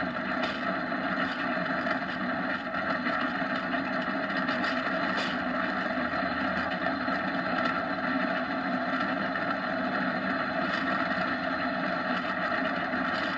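Steady drone and rush of a downhill kart at speed: wheels rolling on asphalt and air rushing past, holding an even level throughout.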